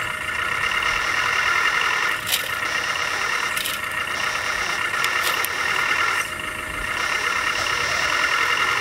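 1/14-scale RC model machinery running: a steady high whine from small motors and gears, with a few sharp clicks.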